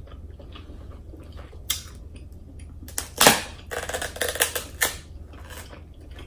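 King crab leg shell being snapped apart by hand: one sharp crack about three seconds in, then a run of smaller crackling snaps as the shell splits.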